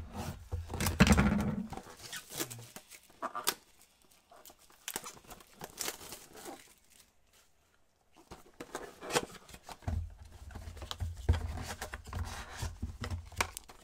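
Gloved hands handling a cardboard trading-card blaster box and tearing open its top: irregular rubs, scrapes and knocks, loudest about a second in, with a rougher stretch of cardboard rubbing and tearing near the end.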